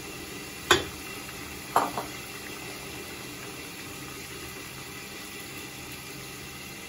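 Broth simmering in a frying pan with Baguio beans and glass noodles, a steady bubbling hiss as the beans are stirred in. Three sharp knocks against the pan in the first two seconds, the first the loudest.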